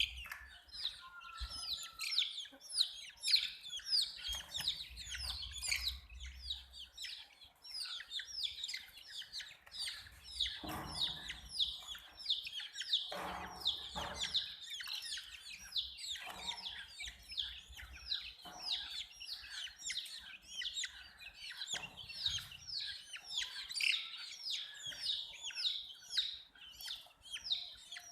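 A group of baby chicks peeping continuously: rapid, overlapping, high, downward-sliding peeps, with a few duller, lower sounds in the middle.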